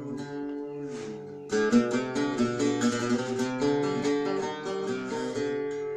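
Algerian mandole picked with a plectrum in a chaabi instrumental passage. It holds a few steady notes, then about a second and a half in breaks into a louder, fast run of picked notes.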